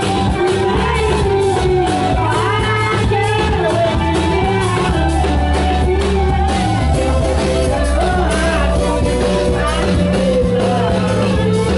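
Comorian toirab (twarab) music: women singing a melody through handheld microphones and a loudspeaker system, over steady amplified backing with held low bass notes.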